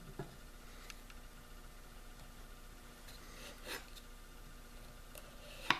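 Light scrapes and taps of a metal putty knife pressing melted HDPE plastic into a hole in a maple board, a few brief strokes with a sharper click near the end, over a faint steady hum.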